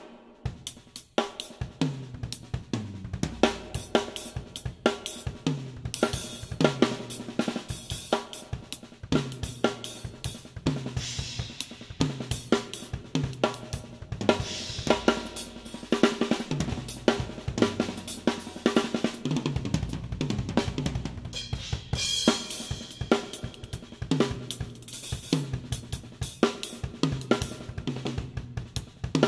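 DW Collector's Series acoustic drum kit played continuously in a busy groove: snare, bass drum and hi-hat, with frequent tom hits that ring and sag slightly in pitch, and several cymbal crashes. Heard close up through a GoPro Hero 5 Black's built-in microphone.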